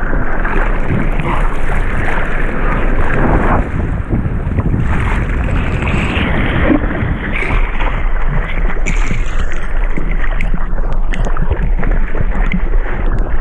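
Sea water rushing and splashing around a surfboard and over a GoPro mounted on its nose, with wind buffeting the microphone, as the surfer paddles through the waves. The wash dips briefly a little under four seconds in, then goes on with scattered splashes and knocks.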